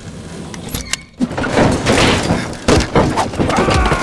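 A rapid series of heavy thuds and bangs, one after another from about a second in, with a falling tone coming in near the end.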